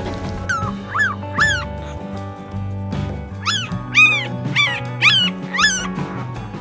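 A dog yelping in short, high-pitched yips, each rising then falling: three in quick succession starting about half a second in, then five more from about three and a half seconds in. Background music plays underneath.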